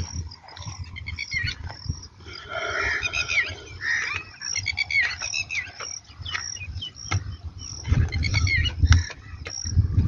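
Birds and insects chirping: a short high chirp repeats steadily, with other chirps and brief gliding calls between. A low rumble comes in near the end.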